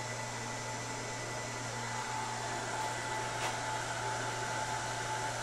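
Steady electrical hum and fan-like whir with a faint constant whine from the powered-up CNC control and servo equipment.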